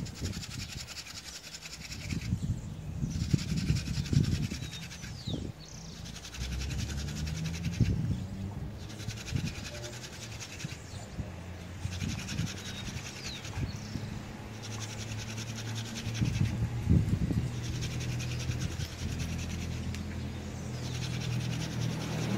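Friction-fire hand drill: a wooden spindle twirled fast between the palms, grinding into a wooden hearth board with a scratchy rubbing sound that breaks off for a moment every two to three seconds as the hands go back to the top of the spindle. A steady low hum runs underneath.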